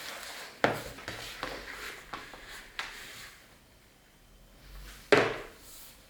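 Hands kneading a stiff dough of flour, white wine, oil and salt on a work surface: rubbing and pressing with three thuds as it is pushed and dropped, the loudest near the end.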